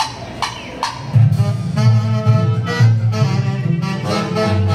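A live band strikes up, its wind instruments holding notes over a strong bass line, coming in loudly about a second in after a few sharp knocks.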